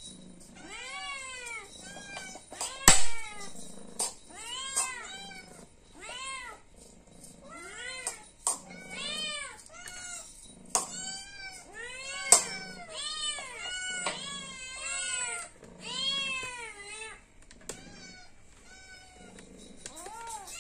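Hungry cat meowing over and over to be fed: a string of short meows that rise and fall in pitch, roughly one a second. A couple of sharp clicks are also heard.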